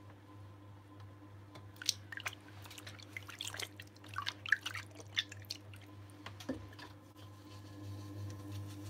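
Electric potter's wheel running with a steady low hum, while wet clay and slip make squelching, dripping clicks in a flurry from about two to five and a half seconds in.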